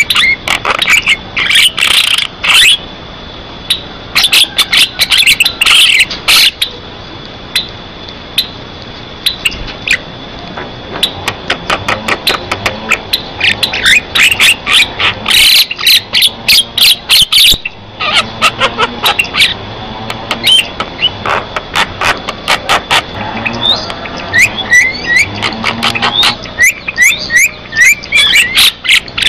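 Javan myna singing vigorously: a fast, loud jumble of sharp clicks, chattering notes and short upward-sliding whistles, with only brief pauses.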